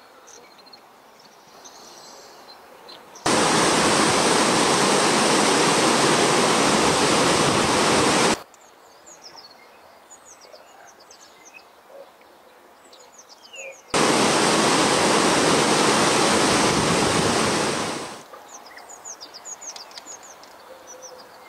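Loud, steady rushing of churning river water, in two stretches of about five and four seconds that start and stop abruptly. Between them it is much quieter, with birds chirping over a faint background.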